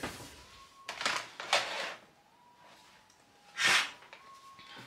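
A curtain being drawn shut: three short swishes, the loudest about three and a half seconds in.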